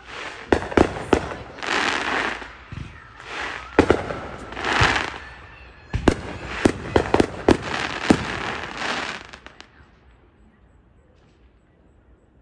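Aerial fireworks going off: sharp bangs with crackling in between, building to a rapid string of reports from about six to nine seconds in, then stopping.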